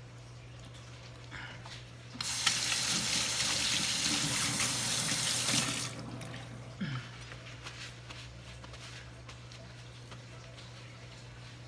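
Kitchen faucet running into a stainless steel sink while hands are rinsed, a steady rush of water for about three and a half seconds that starts about two seconds in and shuts off sharply.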